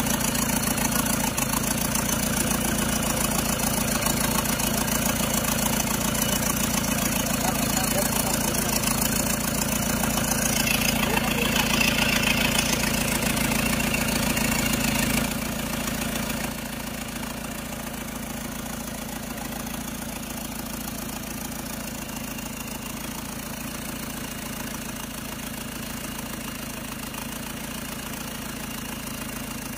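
Isuzu 4JX1 four-cylinder turbodiesel idling steadily with diesel clatter, heard close to the turbocharger. About halfway through the sound drops in level and stays quieter.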